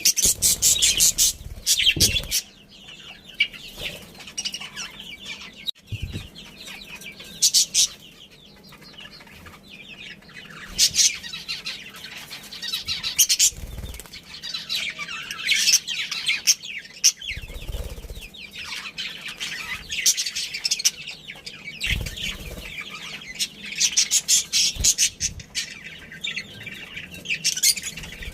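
Budgerigars chirping and chattering in busy bursts that come and go every few seconds, with a few short low thumps in between.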